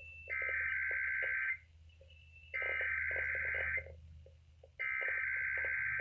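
EAS SAME digital header sent over NOAA Weather Radio: three identical bursts of high, rapidly warbling data tones, each a little over a second long and about a second apart. It is the encoded header of a Required Weekly Test.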